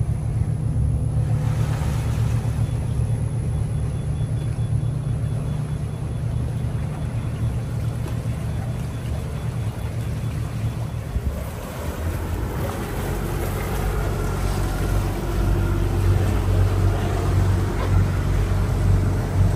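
Yacht's engine running at low speed with water churning along the hull. About twelve seconds in, the engine note changes and grows a little louder as the boat gets under way.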